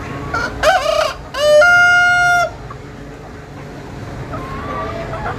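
A rooster crowing once: a broken, rising opening followed by a long, loud held final note, about two seconds in all.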